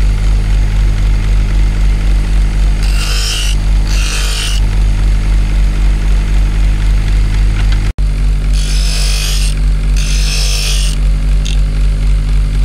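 Electric-motor-driven workshop machine humming steadily, with short hissing bursts of a tool working on material: two about 3 and 4 seconds in, and two more about 9 and 10 seconds in.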